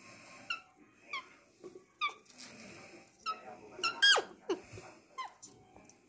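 Alexandrine parakeet giving a series of short squeaks and chirps, about seven in all, with the loudest a sharp falling squawk about four seconds in.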